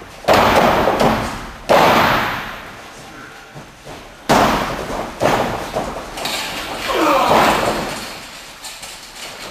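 Heavy slams of wrestlers hitting the raised boxing-ring floor, four sharp impacts in the first five or so seconds, each echoing through a large hall.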